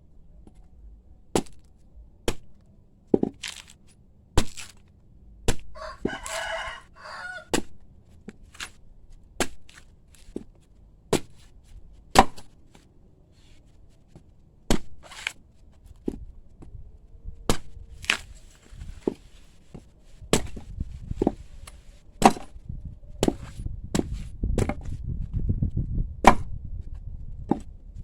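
Repeated sharp chopping blows of a blade into a young coconut, spaced irregularly about half a second to a second and a half apart, coming closer together in the last several seconds. A rooster crows once, about six seconds in.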